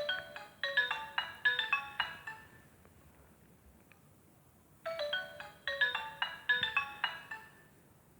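Nokia 105 (RM-908) stock ringtone: a fast phrase of electronic melody notes, about two and a half seconds long, played twice with a pause of about two and a half seconds between.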